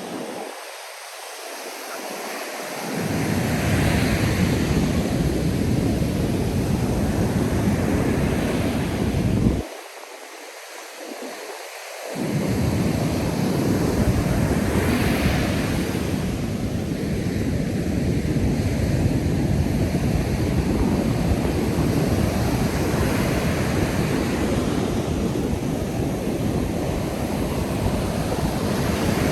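Ocean surf washing onto the beach, with waves breaking every few seconds over a steady hiss, and strong wind buffeting the microphone with a low rumble. The rumble cuts out abruptly at the start and again briefly about ten seconds in.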